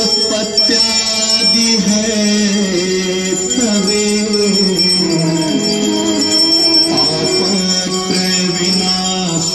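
Hindu aarti: a devotional song with a voice gliding between held notes, over steady bell ringing.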